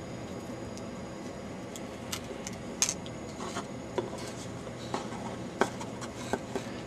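Scattered light clicks and small scrapes of tools and tiny parts being handled at a workbench, over a steady low hum. The sharpest click comes about three seconds in.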